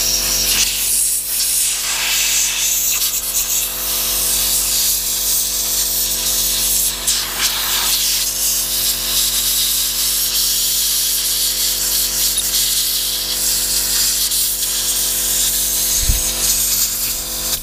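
Compressed air hissing out of an air blow gun as it blasts dirt off a lawnmower engine, almost without pause apart from a few brief dips.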